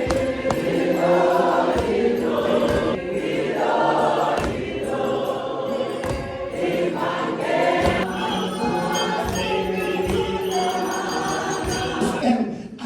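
A choir singing a gospel song, several voices holding drawn-out notes together.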